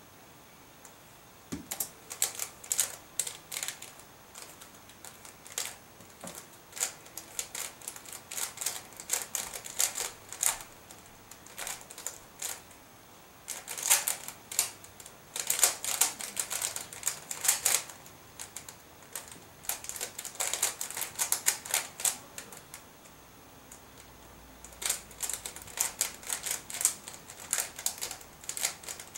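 A Square-1 puzzle being speedsolved: rapid clicking and clacking of its plastic layers as they are twisted and sliced. The turns come in quick flurries with brief pauses, starting about two seconds in, with a longer pause near the end.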